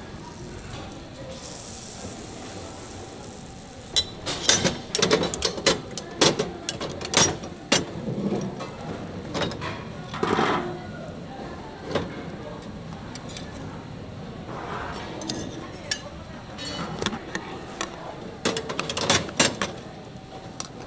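Metal tools clinking and knocking against a metal pancake griddle, in irregular runs of sharp clicks and knocks: one run a few seconds in and another near the end, over a steady low background.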